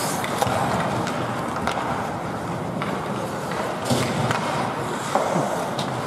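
Ice hockey play on the rink: skate blades scraping and carving the ice, with a few sharp clacks of sticks and puck.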